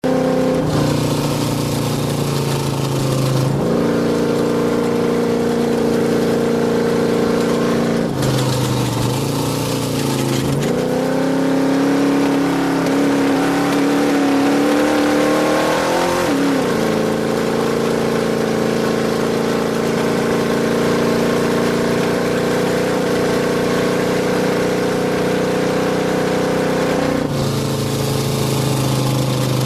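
Off-road race vehicle's engine running hard under steady load, heard onboard. Its pitch holds for long stretches, then shifts several times with speed and gear changes: a dip about eight to ten seconds in and a climb around sixteen seconds in.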